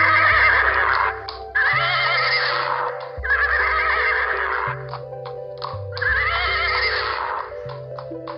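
Horse whinnying again and again: four long, quavering neighs of about a second and a half each, spaced a second or two apart, over background music with steady low chords.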